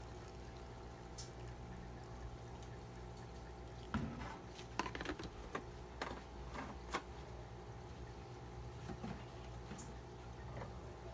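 Hot water pouring from a thermos pot into an instant cup noodle, then a few short light clicks and taps between about four and seven seconds in as the pouring ends, over a steady low hum.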